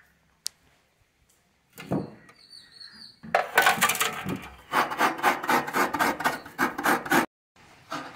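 Fresh coconut being scraped with a hand-held coconut scraper over a steel tray: a run of rhythmic rasping strokes, about three or four a second, that stops briefly near the end. A single knock comes about two seconds in.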